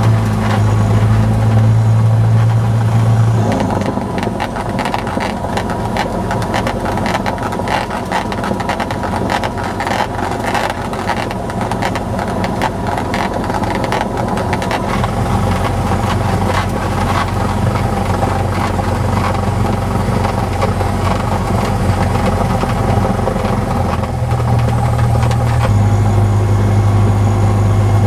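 Cessna 172's piston engine and propeller running steadily while the plane taxis, heard inside the cockpit. The engine note drops about three seconds in and rises again near the end, with lots of rattling in between.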